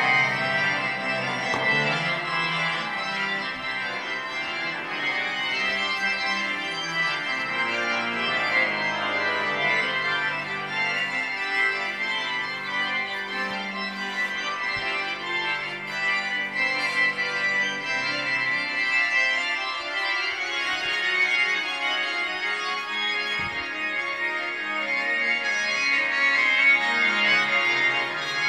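Instrumental music carried by long sustained organ-like keyboard chords, with no singing.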